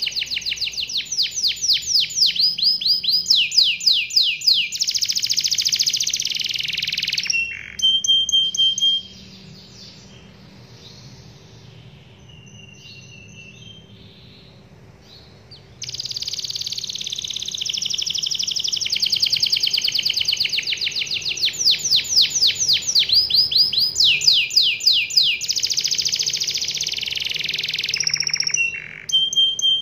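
Domestic canary singing a long rolling song of fast trills, each made of rapidly repeated sweeping notes, one run after another. The song breaks off about nine seconds in, leaving only faint chirps, then starts again about seven seconds later and runs on in the same trills.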